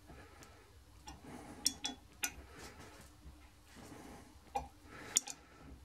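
Steel ring spanner clinking on a bolt head several times as it is turned and refitted. The bolt is being tightened through a bridging plate to draw out a seized camshaft-sprocket drive pin.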